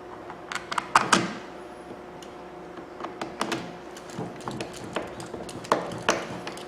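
Irregular clicks and knocks of hard plastic and metal parts being handled and fitted together while a power drill's handle and its long screws go back on. The loudest knocks come in a quick cluster about a second in, then lighter ticks follow at uneven intervals over a faint steady hum.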